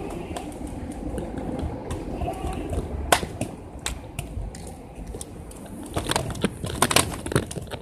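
Scooter wheels rolling over a concrete sidewalk: a steady low rumble with scattered sharp clicks and knocks, a cluster of them about six to seven seconds in.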